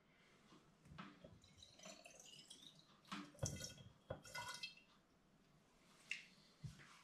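Wine trickling faintly from a siphon tube into a glass bottle, the pitch rising as the bottle fills. A few light clicks and knocks of glass and plastic come about halfway through as the tube clip on the bottle is handled, and one more near the end.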